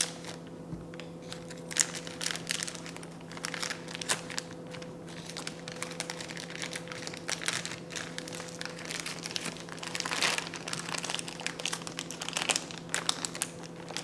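A packet of powdered baking mix crinkling and crackling in irregular spurts as it is handled and worked open. A steady low hum sits underneath.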